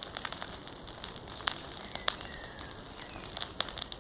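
Bonfire burning with irregular sharp crackles and pops over a steady hiss.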